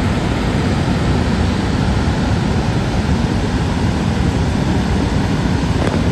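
Steady rushing roar of water pouring over Niagara Falls, even in level and heaviest in the low end.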